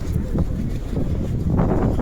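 Wind buffeting the microphone on the deck of a moving cruise boat: a loud, gusty low rumble.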